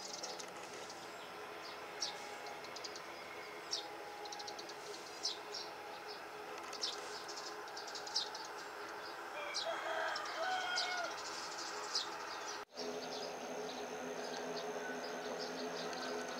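Distant ATR 72 turboprop engines running with a steady hum as the aircraft taxis, while birds chirp over it and a rooster crows about ten seconds in. After a brief dropout near the end, a steady high-pitched whine joins in.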